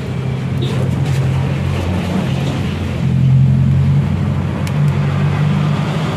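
An engine running steadily, its pitch shifting slightly up and down a few times, with a few faint clicks over it.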